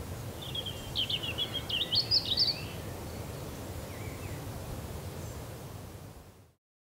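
A songbird sings one short phrase of quick, high warbling notes and trills over a steady low background rumble. The sound fades out to silence near the end.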